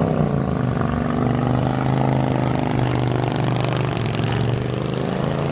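Motorcycle engine running loud, its pitch dipping in the first second and then holding steady.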